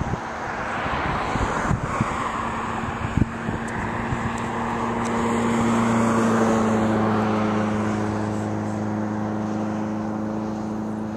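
Jet airliner passing overhead: its engine roar swells to a peak about six seconds in, then eases into a steady low drone as it moves away. A few low thumps of wind on the microphone in the first few seconds.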